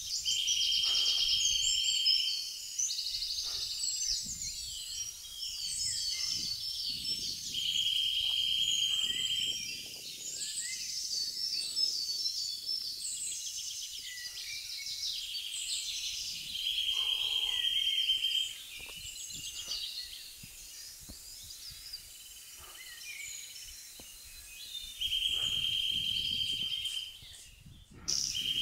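Woodland birdsong from several birds at once, with one steady, even trill about two seconds long repeating four times, roughly every eight seconds.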